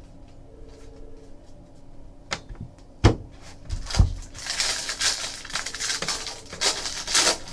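Trading cards and pack wrappers being handled on a table: a few knocks in the first half, then several seconds of steady rustling and sliding.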